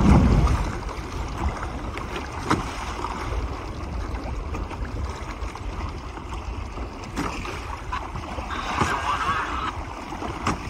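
Wind buffeting the microphone and chop slapping and washing along the hull of a Hobie sailing kayak under way in choppy water, with a few sharp knocks and a louder wash of water about nine seconds in.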